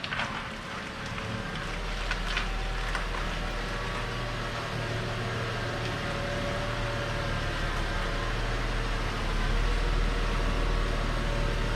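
2011 Volvo XC90 with the 3.2 straight-six being driven, a steady low engine and road rumble that grows louder about nine seconds in.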